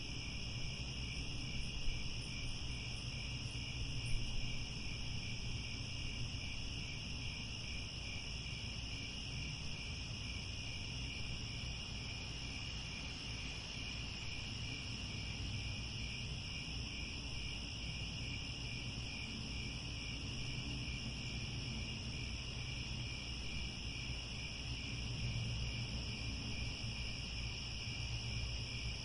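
Crickets chirring steadily in two high-pitched layers, over the low rumble of a firepit fire, with a few sharp crackling pops in the first few seconds.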